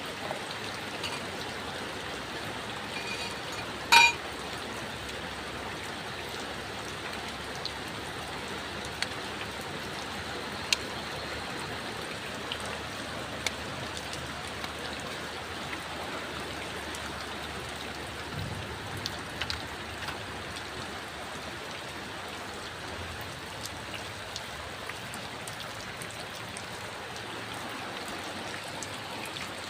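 Steady rain falling, with scattered sharp drop ticks. About four seconds in comes one much louder sharp knock with a brief ring.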